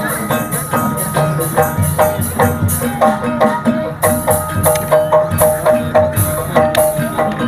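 Gamelan music accompanying an ebeg trance dance: quick, steady runs of pitched metallic strikes over a drum beat, with bright clashing hits on top.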